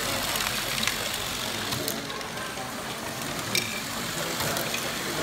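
Motorised Lego Technic ball-run machines running: a steady mechanical whirr with scattered sharp clicks of plastic balls and parts.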